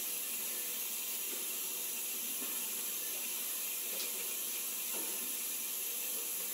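Tap water running steadily into a sink, with a couple of faint light knocks about four and five seconds in.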